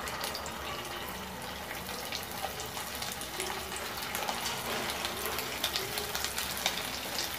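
Mutton seekh kebabs frying in hot oil in a pan: a steady sizzle full of fine crackles, growing a little louder as more kebabs go into the oil.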